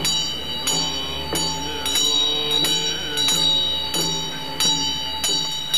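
Tibetan Buddhist damaru, a small double-headed hand drum, shaken in a steady rhythm of about three strokes every two seconds, over a sustained ringing bell-like tone and a low drone.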